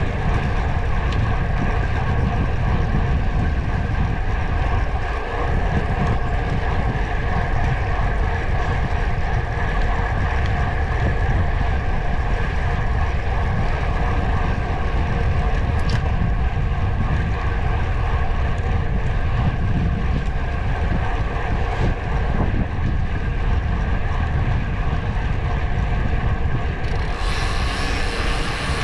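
Wind rumbling over the microphone with a steady drone from the moving ride, held at an even pace throughout; a brighter hiss comes in near the end.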